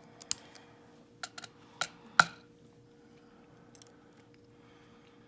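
Small sharp metal clicks and taps, about half a dozen, the loudest a little after two seconds in: tweezers and tiny lock pins being handled while a euro cylinder lock is taken apart.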